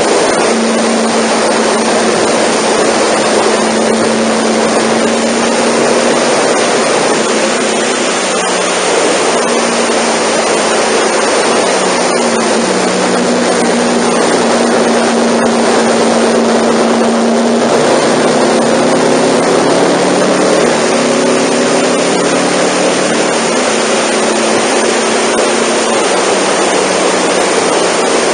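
Rush of wind on the microphone at expressway speed, with a Honda NC700's 670 cc parallel-twin engine running underneath. The engine's pitch holds steady, then steps and rises a few times partway through as the speed changes.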